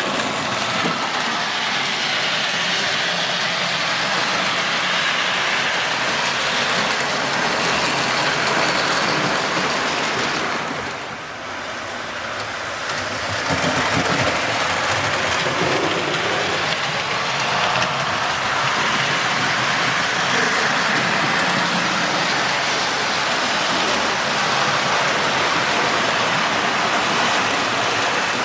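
Model railway trains running on the layout: a steady rolling whirr of locomotive motors and wheels on rail, briefly quieter about eleven seconds in.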